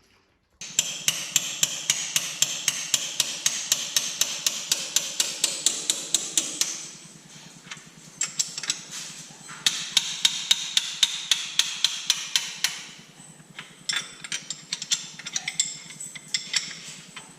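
Rapid, evenly spaced hammer blows on metal, about four to five a second, in three runs with short pauses between.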